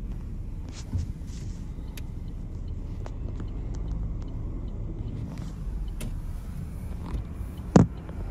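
Low, steady rumble of a car driving through city traffic, with a few light clicks and one sharp knock near the end.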